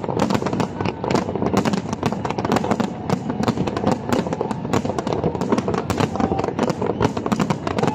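Fireworks display: many aerial shells bursting together, a dense, unbroken barrage of bangs and crackles, several every second.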